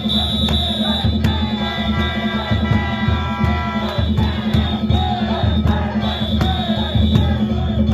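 Danjiri festival music: drum and small gongs beaten in a quick, steady rhythm, with the ring of the gongs carrying throughout, over a crowd chanting and shouting.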